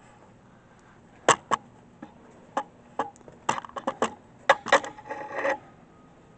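About a dozen irregular sharp clicks and knocks, ending in a brief scrape.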